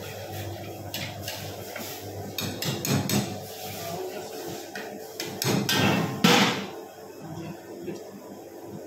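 Metal ladle knocking and scraping against a wok in a series of clanks, loudest about six seconds in, over a steady background hum.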